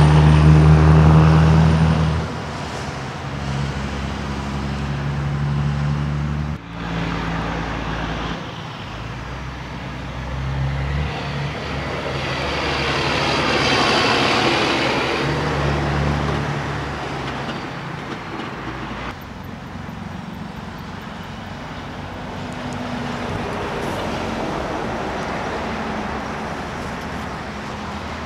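Semi-trucks driving past one after another, diesel engines running with a deep drone over tyre and traffic noise. The drone is loudest right at the start; about halfway through a close pass swells up and fades away.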